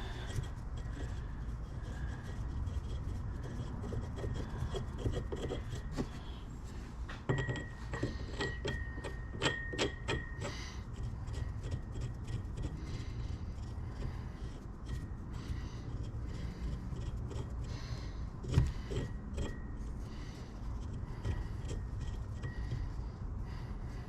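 Steel wheel studs being threaded by hand into a new unitized front wheel hub: metal rubbing and scraping against the threads over a steady low rumble. A cluster of light metal clicks with a faint ring comes about a third of the way in, and a single louder knock about three-quarters of the way through.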